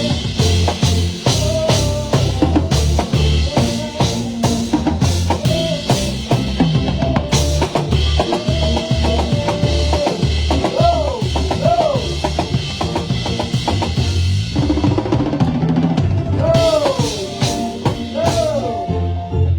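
Live band playing: a drum kit keeps a driving beat with bass drum and snare under a bass line and a melody with sliding notes. The music stops abruptly at the very end.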